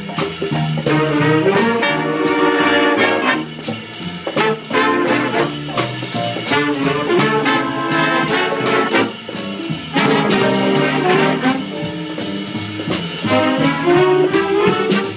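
Jazz big band playing: trumpets, trombones and saxophones in chords over drum kit and upright bass, with regular drum and cymbal strokes keeping the beat.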